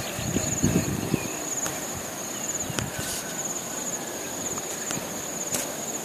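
An insect trilling: a high, steady, finely pulsing note. A few soft crunching steps on gravel in the first second.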